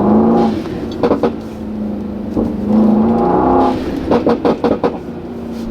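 Brabus 900's 4.5-litre twin-turbo V8 accelerating in Sport Plus, its note rising twice, with sharp exhaust pops about a second in and a rapid string of cracks between 4 and 5 seconds in, like shots being fired.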